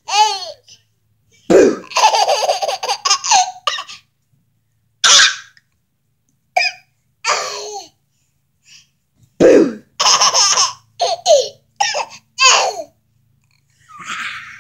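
A baby laughing in repeated bursts with short silences between, the longest bursts lasting about two seconds.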